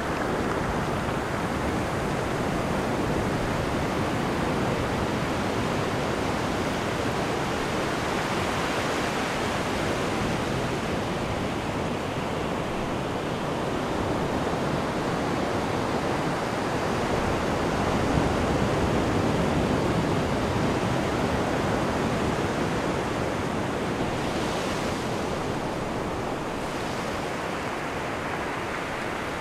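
Ocean surf: a steady wash of breaking waves, swelling a little louder about two-thirds of the way through.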